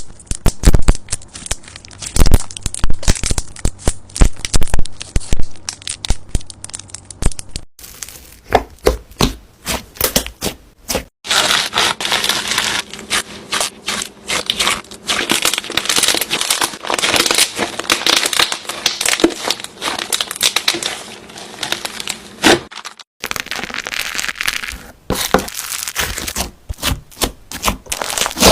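Slime being squeezed and pressed by hand, giving dense runs of sharp crackling and clicking pops, in several short takes separated by abrupt cuts.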